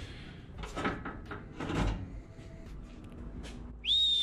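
Sheet-steel radiator core support of a Nissan 240SX S13 being handled and lifted free: a few scraping rustles and small clicks, then near the end a loud high whistle-like squeal that slides down in pitch.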